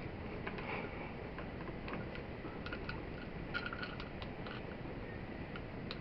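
Faint scattered clicks and rustles of electrical wires and a plastic dimmer switch being handled and pushed into a wall switch box, over a steady hiss.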